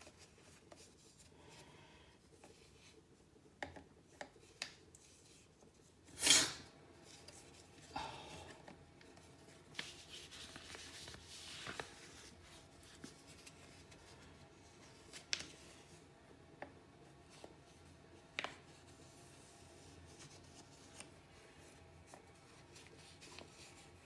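A paper banknote rustling and crinkling in the hand with scattered light clicks and taps as it is pushed at the note slot of a toy electronic money-box safe, with one louder rustle about six seconds in.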